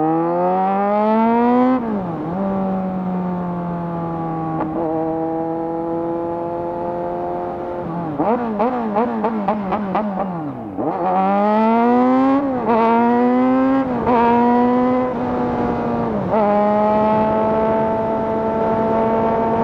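2018 Kawasaki Z900's inline-four through a de-catted SC Project full-system exhaust, revving up through the gears with a sharp drop in pitch at each upshift, then holding a steady cruise. About halfway through comes a couple of seconds of quick on-off throttle blips, then another hard pull through several gears, settling into a steady cruise near the end.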